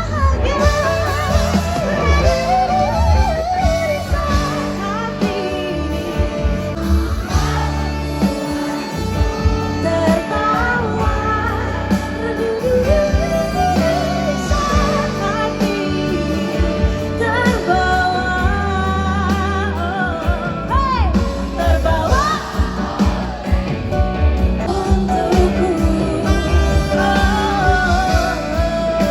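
Live pop band playing a song with heavy bass under a sung melody.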